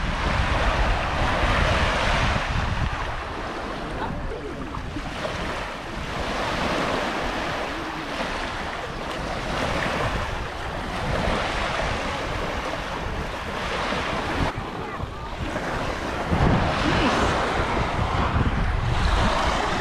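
Gulf surf washing in shallow water, swelling and easing every few seconds, with wind rumbling on the microphone.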